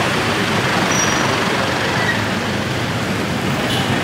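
Steady noise of road traffic.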